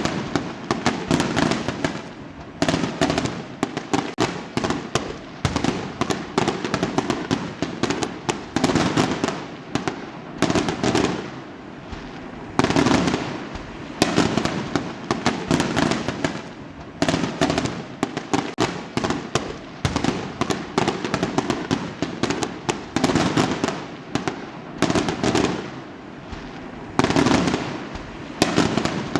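Fireworks going off without pause: dense volleys of sharp bangs and crackling, one cluster after another every second or two.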